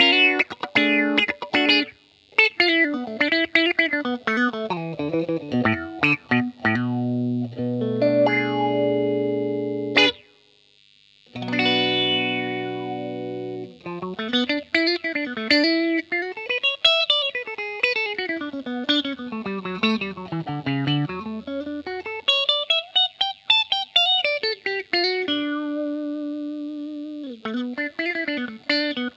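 Hahn 228 electric guitar played through an effects pedalboard into a Fender Blues Jr amp, with a light drive. Fast picked single-note runs and held chords, a short break about ten seconds in, then quick lines that climb and fall.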